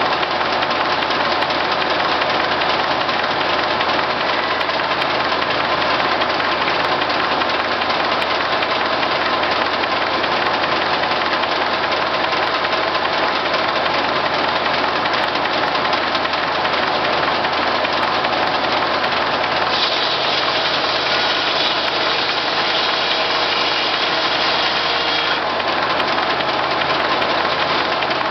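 Case six-cylinder power unit running the J. A. Vance circular sawmill at a steady pace. For about five seconds, starting roughly two-thirds of the way in, a brighter, higher-pitched noise joins the engine.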